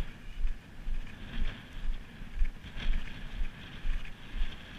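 Wind buffeting the microphone in irregular low thumps, about two a second, over a steady hiss of wind and choppy sea.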